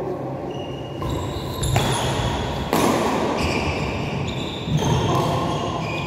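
Badminton rackets striking a shuttlecock in a doubles rally: four sharp hits roughly a second apart, each ringing on briefly.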